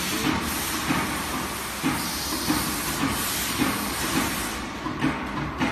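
Fiber laser cutting machine's pallet exchange table running: a steady hiss with a low clunk recurring about every half second. The hiss thins out near the end.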